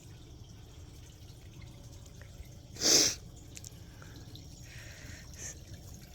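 A short, loud breath close to the microphone about three seconds in, over a faint background of dripping water.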